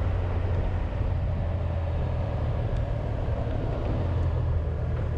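Honda VFR1200X Crosstourer's V4 engine running steadily under way, a constant low drone mixed with wind and road noise, picked up by a camera on the motorcycle's windshield.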